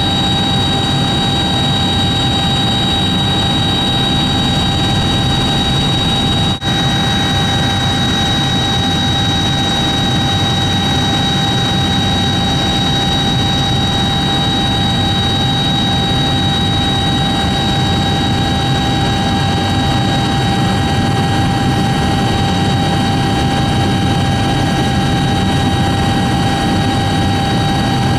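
Helicopter in flight, heard from inside the cabin: loud, steady engine and rotor noise with a constant high whine. The sound drops out for a split second about six and a half seconds in.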